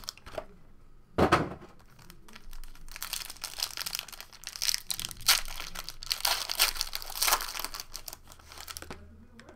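Plastic wrapping on a pack of trading cards crinkling and tearing as it is opened: one sharp tear about a second in, then several seconds of continuous crinkling.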